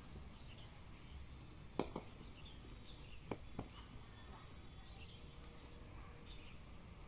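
Faint open-air ambience with birds chirping, broken by a few sharp knocks of a cricket ball during fielding practice. The loudest knock comes a little under two seconds in, with a second right after and two more about halfway through.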